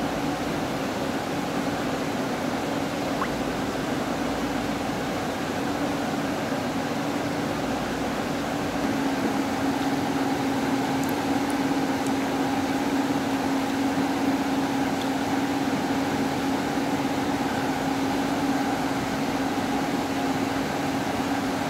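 A machine's steady hum with a constant low drone over an even rushing noise, slightly louder from about nine seconds in.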